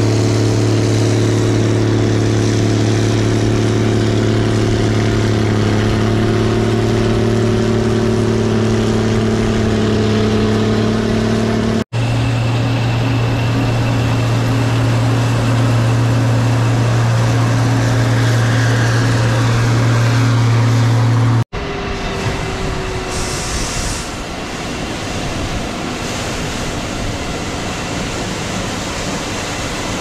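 Gleaner combine harvesters running in the field: a steady, loud, low engine and machinery hum. The sound is in three stretches joined by abrupt cuts about twelve and twenty-one seconds in, and the last stretch is a rougher, noisier rumble.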